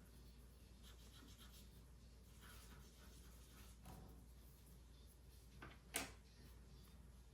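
Faint rubbing and scratching of hands and small repair tools on phone parts, with one sharp click about six seconds in.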